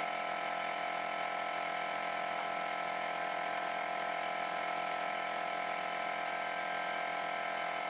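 A machine running steadily with an even hum and hiss, several fixed tones held throughout.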